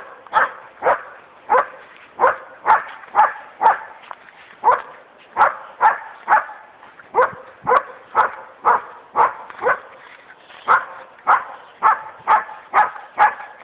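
Belgian Malinois puppy barking over and over in short, sharp barks, about two a second, with a couple of brief pauses.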